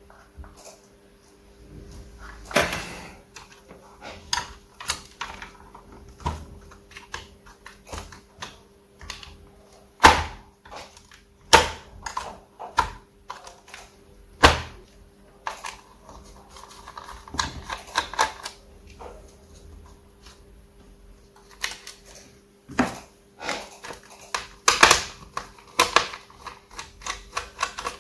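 Irregular clicks and taps of hands handling the plastic chassis and small parts of an opened Asus laptop, loudest about ten seconds in and again near the end, over a faint steady hum.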